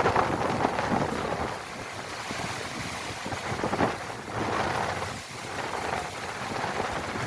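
Wind rushing over the microphone, rising and falling in gusts.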